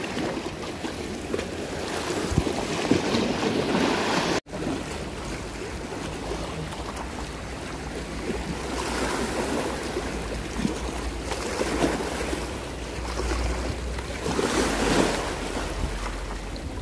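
Sea water washing and lapping, with wind buffeting the microphone. The sound drops out abruptly for an instant about four seconds in, and a low rumble swells in the second half.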